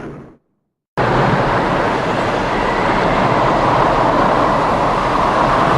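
Hurricane wind and driving rain, a dense steady rush that cuts in abruptly about a second in after a brief silence.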